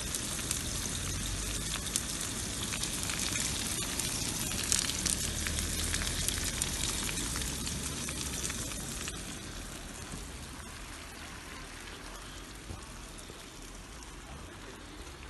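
Sucuk (Turkish spiced sausage) sizzling in hot oil in a frying pan: a dense hiss with many sharp little pops and crackles, easing off slightly in the second half.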